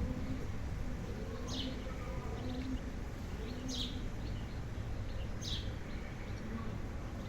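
A bird chirping outdoors: three short, high chirps about two seconds apart, over a steady low background rumble.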